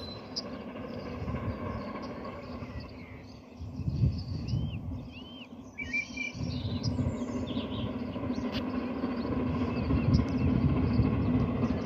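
GWR Castle-class steam locomotive 7029 'Clun Castle' approaching in the distance, a low rumble that grows louder toward the end. Birds chirp a few times near the middle.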